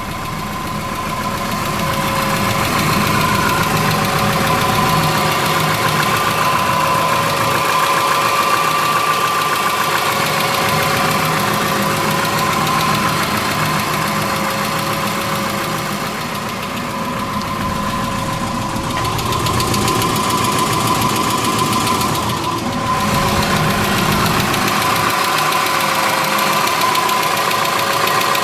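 2003 Subaru Forester's flat-four boxer engine idling with a ticking noise at low idle. The tick is the sign of an exhaust valve lash out of spec on one cylinder.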